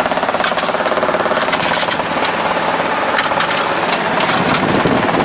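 Helicopter in flight, its rotor and engine making a steady, rapid, even chop.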